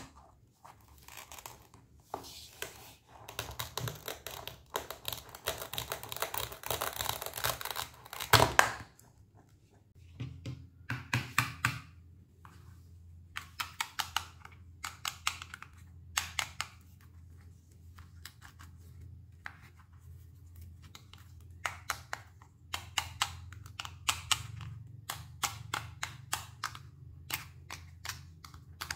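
Knife cutting fruit on a cutting board: a few seconds of scraping and slicing noise ending in a sharp knock, then a long run of quick separate taps and clicks.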